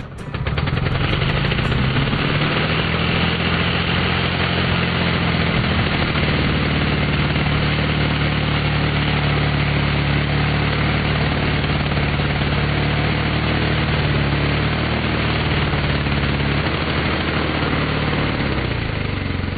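Ryobi chainsaw running at full speed as it cuts through a log, a steady loud drone whose pitch sags briefly a couple of times under the load of the cut.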